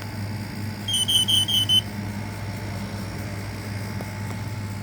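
Interconnected Kidde combination smoke and carbon-monoxide alarms sounding their CO alarm: a quick run of short, high-pitched beeps about a second in, the four-beep carbon-monoxide pattern, which signals carbon monoxide and not fire.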